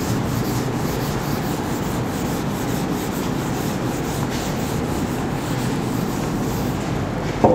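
Whiteboard eraser rubbed back and forth across a whiteboard, a steady scrubbing in quick repeated strokes.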